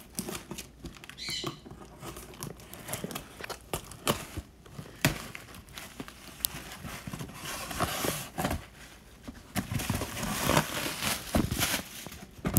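A taped cardboard shipping box being opened by hand: irregular rustling and scraping of cardboard and tape, with scattered sharp knocks and clicks.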